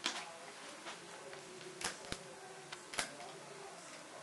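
Irregular light clicks and snaps as rubber bands are lifted off a plastic loom with a plastic hook, about five in all, the sharpest right at the start and around two and three seconds in.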